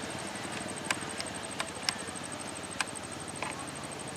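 Outdoor night background: a high, rapidly pulsing insect trill runs steadily over a low hiss, with a handful of sharp clicks scattered through it.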